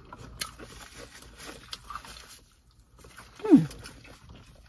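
A person chewing a mouthful of salad with soft wet clicks and crunches, then, about three and a half seconds in, one short closed-mouth "mmm" hum that falls sharply in pitch, a sound of enjoying the food.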